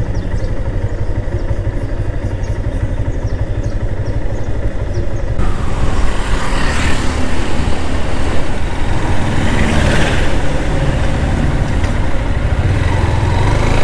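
Motorcycle engine running while riding in street traffic, with road and wind noise on the mic. About five seconds in the noise suddenly turns louder and brighter, and two passing swells follow.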